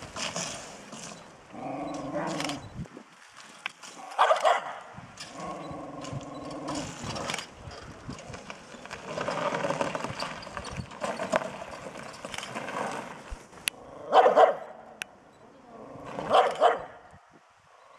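Small terrier barking repeatedly at a stuffed bear, mixing longer drawn-out barks with a few sharp, loud ones about four seconds in and twice near the end.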